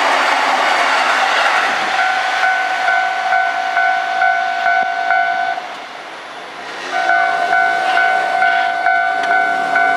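Rolling noise of a passing E233-series electric train fades over the first two seconds. Then a Japanese level-crossing alarm rings, an electronic two-tone bell striking about twice a second. It stops for about a second and a half just past the middle, then starts again.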